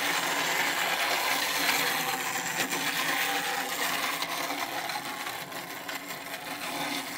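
Thomas the Tank Engine pull-back toy train running around a plastic track: its wound-up spring motor whirring and its wheels rattling steadily, getting gradually a little quieter.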